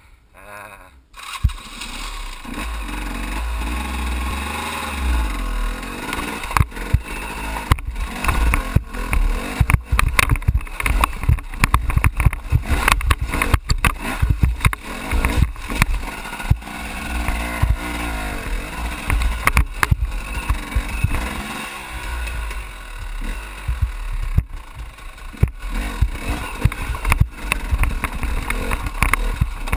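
Off-road enduro motorcycle engine starts about a second in, then runs at low revs as the bike crawls over loose rocks, with frequent sharp knocks and clatters from tyres and chassis striking the stones.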